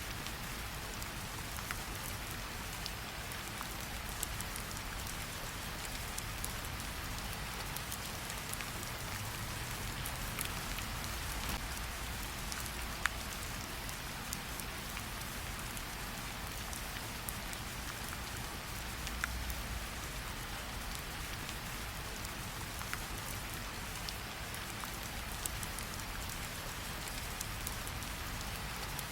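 Steady rain falling, with occasional sharp crackles and pops from a campfire, the loudest about 13 and 19 seconds in.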